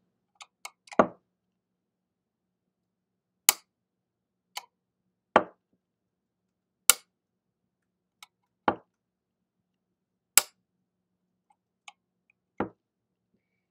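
A magnet repeatedly pulled off a metal plate and set back on it: a duller clack each time it breaks free, about once every three and a half seconds, and a sharp click each time it snaps back onto the plate in between, with a few faint ticks.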